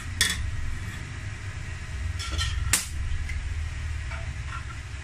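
A few sharp metallic clicks as a stick-welding electrode holder and rod are handled and set down on sheet metal, the loudest about three seconds in, over a steady low hum.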